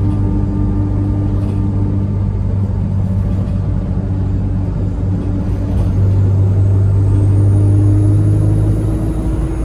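Bus engine running steadily as the bus drives along, heard from inside the passenger saloon with a deep hum and road rumble. From about six seconds in it gets a little louder, and a faint high whine rises and then falls away near the end.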